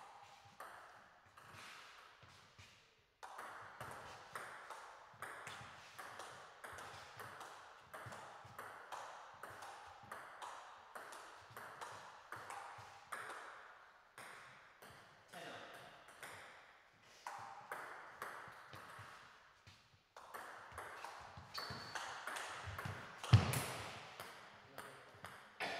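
Table tennis rallies: the plastic ball clicks in quick succession off the bats and the table, in runs broken by short pauses between points. A much louder thump comes near the end.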